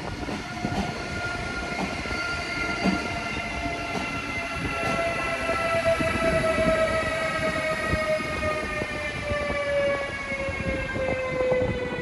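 Siemens Vectron electric locomotive (DSB class EB) hauling coaches through the station: a whine made of several tones that slowly falls in pitch, over wheel clicks and rail noise.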